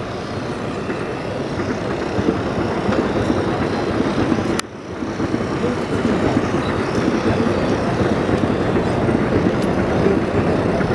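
Steady outdoor background noise with indistinct voices mixed in, briefly dropping out about four and a half seconds in.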